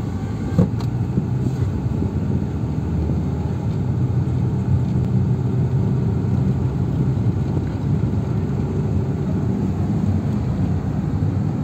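Car driving, heard from inside the cabin: steady engine and road-noise drone. A brief click or knock about half a second in.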